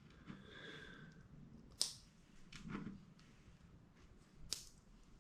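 Small plastic LEGO Technic parts being handled on a table: a few quiet clicks and taps, with two sharper clicks about two and four and a half seconds in.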